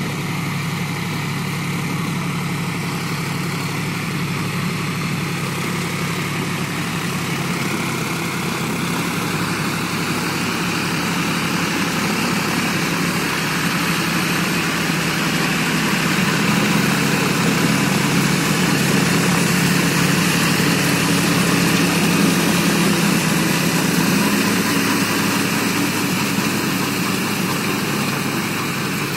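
John Deere 5045D tractor's three-cylinder diesel engine running steadily under load as it drives a rear rotary tiller through a flooded rice paddy. It grows somewhat louder in the middle and eases off near the end.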